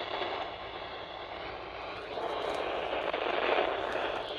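Steady hiss of radio static on a weather-alert radio broadcast, with the announcer's voice lost under the noise. It grows a little louder about halfway through.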